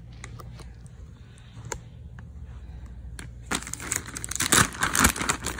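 A plastic shipping bag crinkling as it is handled and pulled open. A few faint rustles and clicks come first, then about three and a half seconds in a loud, continuous crackling starts and keeps going.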